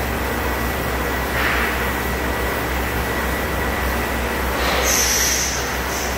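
Electric-motor hydraulic power pack running a hydraulic pusher, giving a steady low hum with a thin whine. There is a short hiss about a second and a half in, and a louder, higher hiss lasting about a second near the end.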